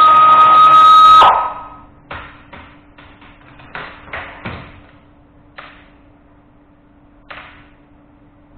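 A handheld power tool runs for about a second and a half with a steady whine while unfastening the assist motor from an electric power steering rack. It is followed by a series of short metallic clinks and knocks as the parts are handled.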